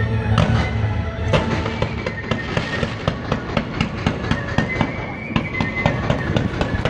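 Ground fireworks going off: a quick string of sharp bangs and crackles, several a second, over a low rumble in the first second. Whistling tones run through it.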